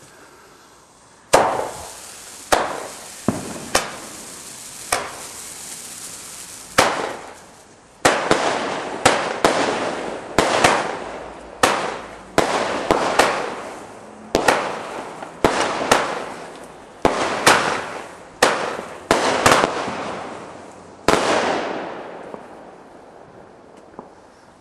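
Consumer firework cake firing shot after shot, about twenty sharp bangs at uneven intervals, each trailing off in a hiss. The shots start about a second in and stop about 21 seconds in.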